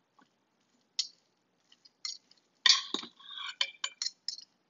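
Metal utensils clinking and scraping against the Instant Pot's stainless steel inner pot as cooked chicken is cut up in it: a string of short, sharp clinks, the loudest cluster about three seconds in.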